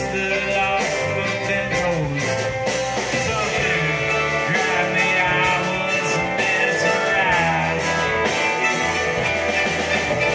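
Live band playing a rock song: electric guitars, mandolin, upright bass and drum kit, with singing over it.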